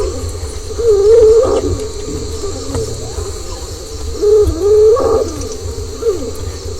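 Unexplained snoring-like sound: a low, wavering hoot-like tone, heard twice about three and a half seconds apart, each call rising in pitch at its end.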